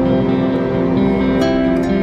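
Background music: gentle plucked guitar, a soft instrumental track.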